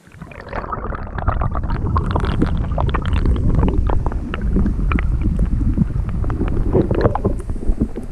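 Underwater sound from a camera dipped into the river: a loud, muffled rumble of moving water over the camera housing, full of gurgles and crackling clicks, starting suddenly as it goes under.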